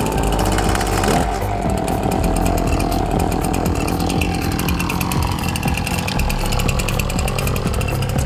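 Husqvarna brushcutter's two-stroke engine revving up as the throttle is opened, then running at high speed.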